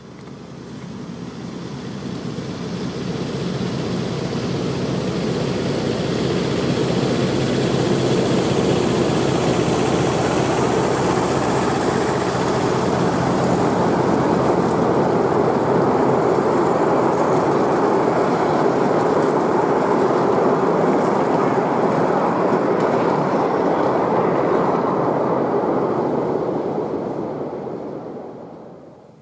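A miniature railway train running past on its narrow-gauge track, a continuous rumble of wheels and carriages over the rails. It grows louder over the first few seconds, holds steady while the coaches go by, and fades out near the end.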